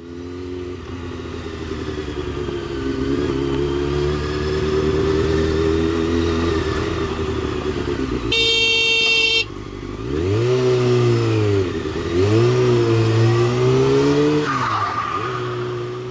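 Honda CBR600 F4i's inline-four engine running at low speed through traffic, then revved up and down several times from about ten seconds in. A horn sounds once, for about a second, just past the middle.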